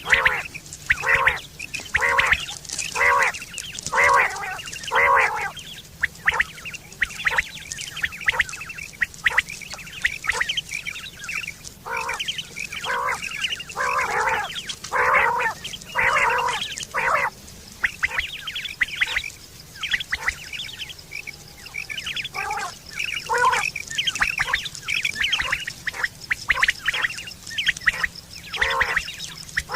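Quail calling: short, sharp notes repeated about once a second, in bouts with brief pauses between. It is a quail call recording used as a hunting and mating lure.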